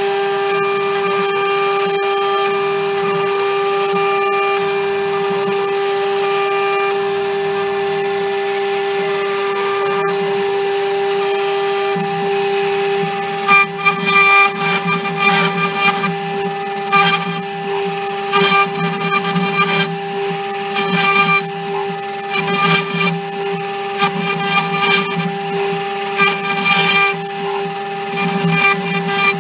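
CNC router spindle whining steadily as a small end mill carves a stamp design into a blue plastic block. About halfway through, the cutting turns louder and choppy, with irregular bursts as the bit bites into the material, over the spindle's constant whine.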